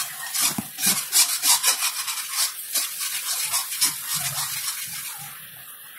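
Metal spatula scraping and stirring thick spice masala around a steel kadai in quick repeated strokes that fade off toward the end. The masala is kept moving without pause so it doesn't stick to the pan.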